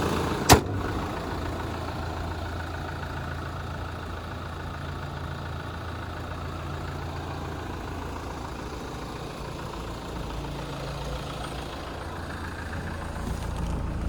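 Hyundai Terracan's engine idling steadily, with a single sharp knock about half a second in.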